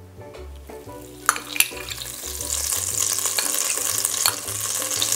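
Melted ghee poured into a hot enamelled cast-iron Staub pot begins sizzling about a second in, with a couple of sharp clicks at the start, then a steady frying hiss that grows louder. Soft background music plays underneath.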